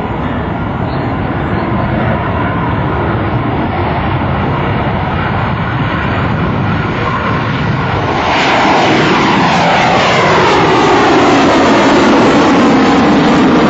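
F-15 Eagle's twin Pratt & Whitney F100 turbofan jet engines at high power through the takeoff roll, lift-off and climb. About eight seconds in the roar grows louder, with its pitch sweeping downward as the jet passes and climbs away.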